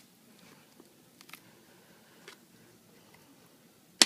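Faint small ticks and crackles of a plastic card being worked under the glued glass of an iPad 3 to free the adhesive, with one sharp click near the end.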